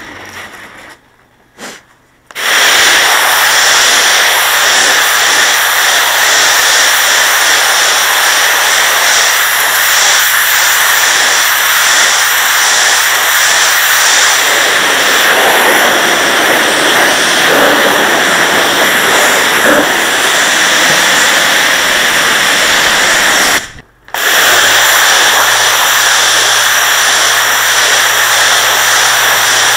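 Pressure washer jet spraying onto porcelain patio slabs: a loud, steady hiss that starts about two seconds in, stops briefly near the end and starts again, with a steady low hum beneath it.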